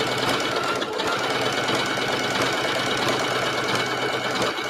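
Electric sewing machine running steadily at speed, stitching through overlapped pieces of leather.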